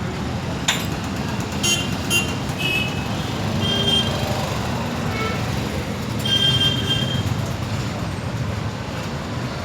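Metal parts and tools clinking and ringing as a backhoe loader is worked on, several sharp clinks in the first couple of seconds and ringing metal tones twice later, over a steady low engine rumble.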